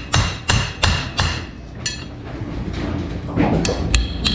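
Claw hammer striking the steel shaft and wheel hub of an AMF 82-30 vertical ball lift: four quick, ringing metal blows about three a second, then a pause and a few lighter taps near the end. The hammering is driving a badly seized shaft out through the wheel's bearing.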